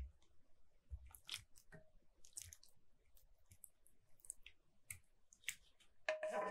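Thick sauce with enoki mushroom strands being poured over a stuffed sea cucumber: scattered soft wet squishes and small clicks. A louder clink with a brief ring comes near the end.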